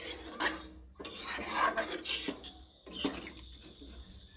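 A utensil scraping, stirring and knocking against a pot of chicken curry. It comes as a run of irregular rasping strokes with a few sharper clicks, one about half a second in and another about three seconds in.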